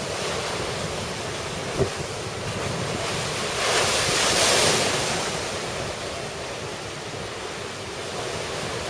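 Heavy storm surf crashing against a stone seawall, under a steady rush of wind on the microphone. The loudest wave breaks and sprays over the wall about halfway through.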